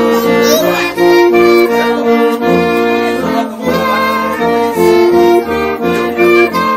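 Accordion playing a lively folk tune, holding chords over an even, bouncing bass line.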